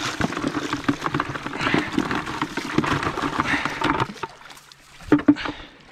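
Rapid clattering and scraping as a catch of signal crayfish is handled and tipped into a keep net, then two sharp knocks about five seconds in.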